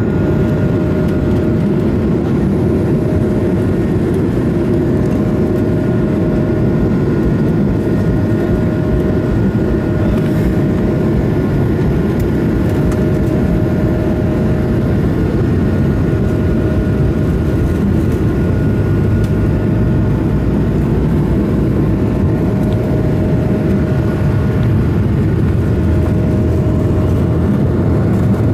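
Airbus A220's Pratt & Whitney geared turbofans and landing-gear rumble heard from inside the cabin as the airliner rolls on the ground. A steady low rumble with a thin, even engine whine on top, and no change in loudness.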